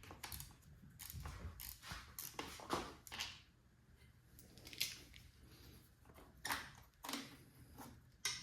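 Faint, irregular clicks and light knocks from small parts being handled while a new motorcycle brake lever is fitted.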